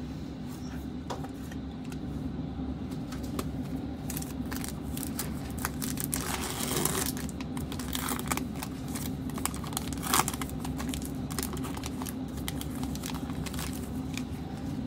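A Panini Prizm basketball foil pack crinkling and tearing open, with trading cards handled and slid about, over a steady low background hum.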